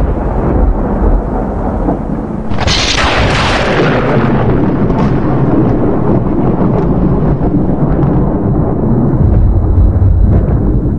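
Thunder: a sharp crack about two and a half seconds in, then a long low rolling rumble.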